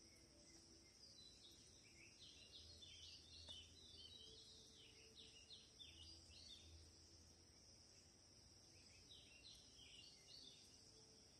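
Faint bird chirping in two spells of quick repeated chirps, over a steady high-pitched hiss.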